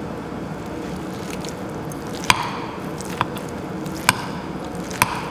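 Metal spoon mixing seasoned radish salad and rice in a glass bowl: soft squishing of the food, with four sharp clinks of the spoon against the glass about a second apart in the second half.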